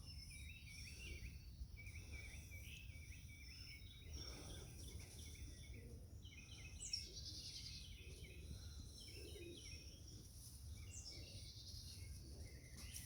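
Faint outdoor ambience of small wild birds chirping and singing repeatedly, with a brighter, longer phrase about seven seconds in and again near eleven seconds, over a low steady background rumble.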